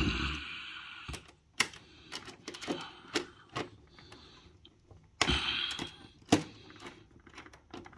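Scattered clicks, taps and scrapes of a screwdriver and wires being handled at a dishwasher's screw terminal block, with a longer scraping rustle at the start and again about five seconds in, and a sharper click just after six seconds in.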